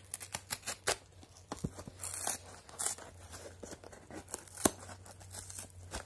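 Utility knife cutting and hands tearing at a taped cardboard package: a run of scratchy crackles and sharp snaps of tape and cardboard, the sharpest a little under five seconds in.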